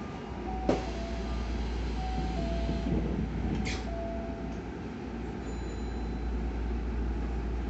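Interior of a stopped Hankyu 9000 series train car: a steady low hum from the car's onboard equipment, with a single knock about a second in and a short hiss near the middle.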